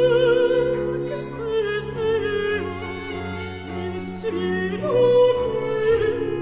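Contralto singing a slow Baroque sacred line with vibrato, gliding between held notes, over sustained bowed strings.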